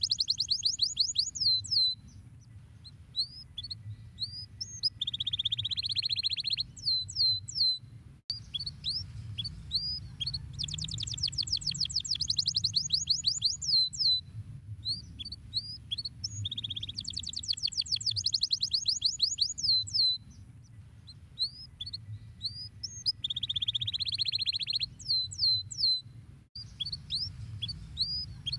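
Domestic canary singing: rapid trills of down-sweeping notes alternate with buzzy rolled tones and single chirps, the same phrases repeating over and over. A low steady hum runs underneath, and the song cuts out briefly twice.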